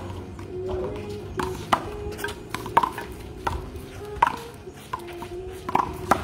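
A handball being struck by hand and smacking off a concrete wall and court during a rally: a series of sharp smacks at uneven intervals.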